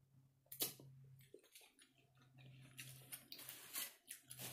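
Faint eating sounds: a sharp click about half a second in, then scattered soft chewing and mouth clicks, over a steady low hum.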